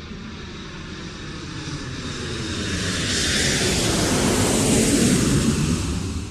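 Aircraft engine noise growing louder to a peak about five seconds in, its pitch falling as it passes, then cutting off at the end.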